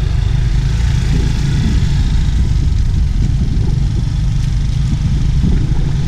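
Motor scooter running steadily while being ridden, with a loud, even low rumble that does not rise or fall.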